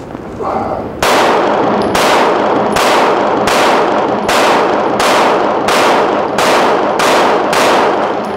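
Glock 17C 9mm pistol with a compensated, ported barrel fired about eleven times in a steady string, a little under a second between shots, each shot ringing on in the reverberant indoor range.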